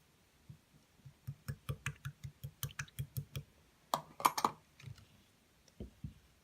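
A quick run of sharp clicks or taps, about four a second, each with a low knock beneath it, followed by a louder cluster of clicks and then two dull thumps near the end.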